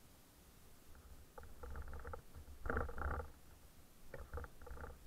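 Mountain bike being walked down a rocky trail: bursts of rapid clicking and rattling with low knocks as the bike jolts over rocks, loudest about three seconds in.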